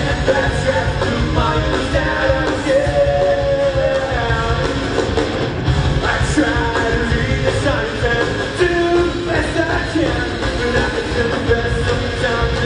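Live rock band playing: electric guitars and a drum kit, with a singing voice over them.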